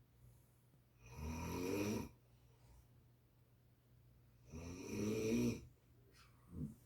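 A sleeping person snoring: two snores about three and a half seconds apart, each lasting about a second, then a brief fainter one near the end.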